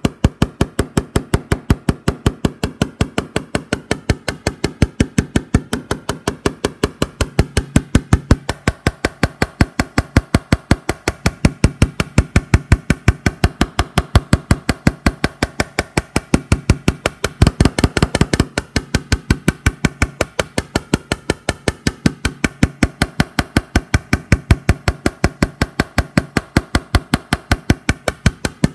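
Rapid, even tapping of a paintless dent repair blending hammer on the steel roof rail, about five light taps a second, knocking down high spots to level hail dents. A brief flurry of harder taps comes about two-thirds of the way through.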